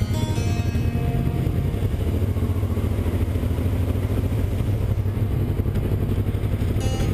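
Motorcycle engine running steadily at a low, even cruise, heard from the bike itself, with a constant hum and no change in revs.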